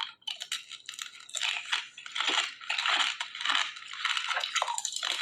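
A person biting into and chewing crunchy food, with a run of irregular crisp crunches.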